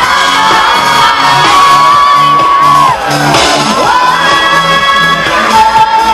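Live pop music: a singer holds long notes that slide in pitch over a pulsing bass beat, with fans whooping and shouting.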